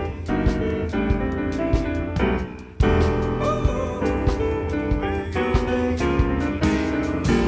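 Live jazz piano trio playing: piano over bass and drums, with dense chords and sharp drum hits. The band drops back briefly and comes back in loud and all together about three seconds in.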